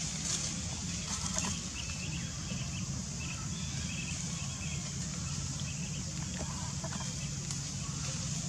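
Steady outdoor background of a low hum and a high even hiss, with faint short bird chirps through the first several seconds.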